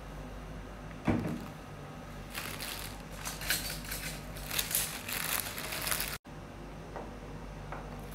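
Plastic bread bag crinkling and rustling as slices are pulled out of it, preceded by a single knock about a second in.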